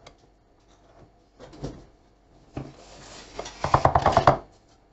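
Spoon working boiled, mashed potatoes in a bowl to break up any lumps: scattered scrapes and knocks, then a quick run of knocks near the end, the loudest part.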